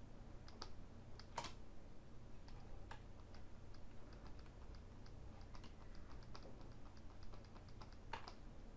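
Faint, irregular clicking of computer keys as the software is worked, with a couple of louder clicks about a second and a half in and near the end, over a low steady hum.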